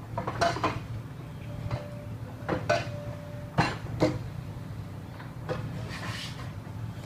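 Construction work: irregular metal clanks and knocks, some ringing briefly, over a steady low machine hum.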